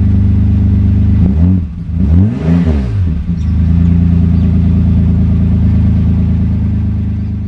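Holden VN Commodore engine running through a new 2.5-inch catback exhaust: a steady idle, blipped up in a few quick revs about a second and a half in, then settling straight back to idle.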